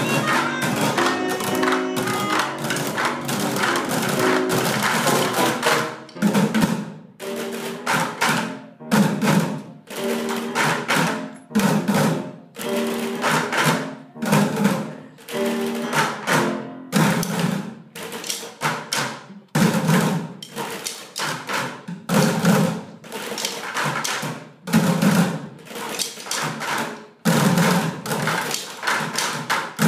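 Ensemble of children drumming with sticks on upturned buckets, playing together. The hits run dense and continuous for about the first six seconds, then come in grouped bursts of sharp strikes and deep thuds with short breaks between them.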